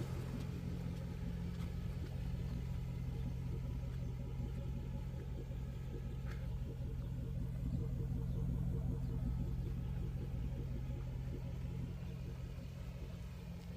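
Mercedes-Benz 500SL's 5.0-litre V8 running steadily, a low even hum that swells a little midway and fades toward the end.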